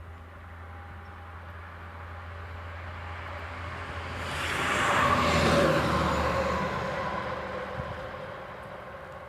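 A vehicle passing by: it builds up, is loudest about five seconds in, and then fades away.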